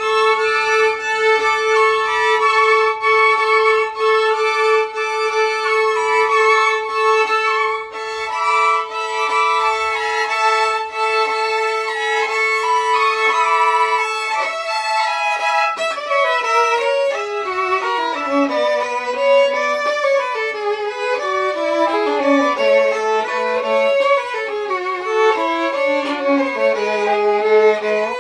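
Two violins playing a Baroque-era duet. For about the first half one violin holds a long steady note while the other plays a moving line above it; then both play scale runs that rise and fall.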